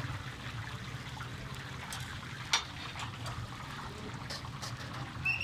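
Chapli kababs frying in hot oil on a wide shallow pan, a steady sizzling and bubbling. A single sharp click about two and a half seconds in, and a short high tone near the end.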